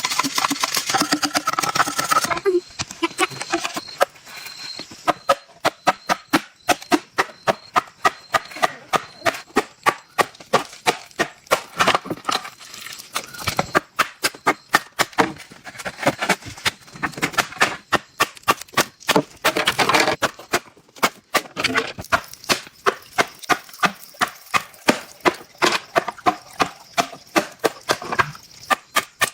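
Bamboo struck over and over with a hand tool: sharp knocks about two to three a second, in long runs with short pauses.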